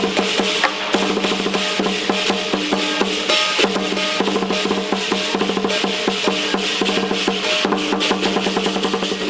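A dragon-and-lion war drum troupe playing its drums in fast, dense rolls, with a steady pitched drone held underneath.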